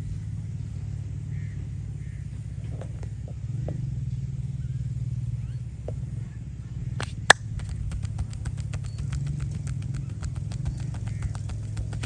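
Quick rhythmic hand-percussion strokes of a head massage, starting about seven seconds in at roughly six sharp strikes a second, with one loud sharp crack at the start of the run. A steady low rumble lies underneath.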